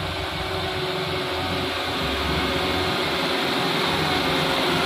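Diesel engine of a loaded Mitsubishi Fuso Canter light truck pulling steadily under load up a muddy slope, growing gradually louder as it comes closer.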